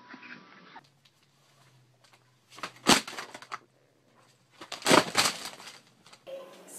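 Two bursts of clattering knocks about two seconds apart: a cat scrambling among objects on a cluttered dresser top and falling off it.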